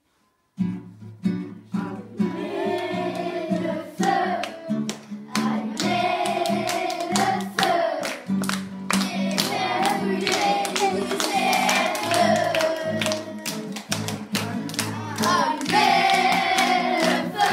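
A group of children singing together to a strummed acoustic guitar, clapping along in time; it starts about half a second in.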